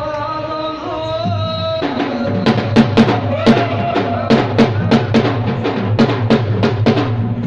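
Devotional music: a held note at first, then about two seconds in drums break in with loud, fast strokes, about four a second, each stroke's ring dropping in pitch.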